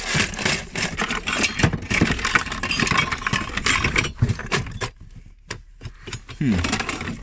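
Hands rummaging through a cluttered box of tools and parts: rapid, irregular clattering and knocking of hard objects, with a short lull about five seconds in.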